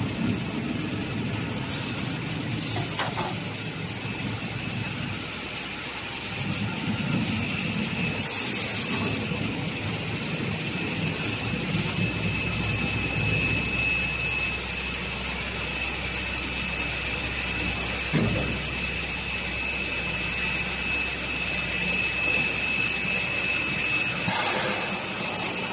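Double beam panel saw running with a steady high-pitched whine over a machine rumble, broken twice by a short burst of hiss, about eight seconds in and near the end.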